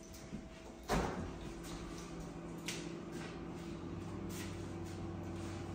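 Frigidaire refrigerator's top freezer door pulled open, a sudden thump about a second in, followed by a steady low hum and a couple of light clicks.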